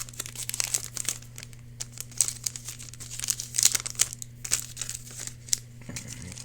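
Foil trading card booster pack wrapper crinkling as it is handled and torn open, in an irregular run of sharp crackles.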